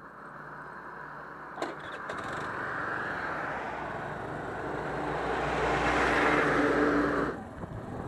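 Road vehicle noise: a rushing sound with a low steady engine hum swells over several seconds and drops away suddenly about seven seconds in, after a single click early on.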